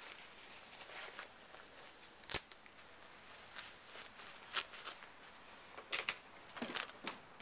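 Footsteps on a snowy brick walk: scattered faint scuffs and crunches, about one a second, with a sharper click about two seconds in.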